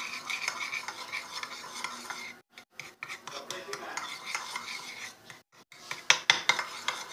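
A spoon stirring food colouring mixed with a little water, scraping and clinking against its container, with sharper, louder clinks near the end.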